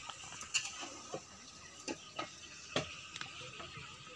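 Faint, irregular light clicks and knocks, about one every half second, over a quiet steady background hiss.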